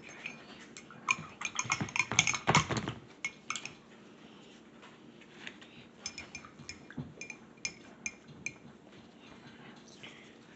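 Paintbrushes clinking against ceramic mugs of rinse water as they are swished and tapped, each clink ringing briefly. A quick run of clinks and a few heavier knocks comes over the first three seconds, then scattered single clinks follow.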